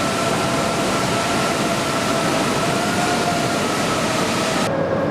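Steady forge-shop machinery noise: a dense hiss with a faint steady whine through it. Near the end the hiss drops off suddenly and the whine settles lower.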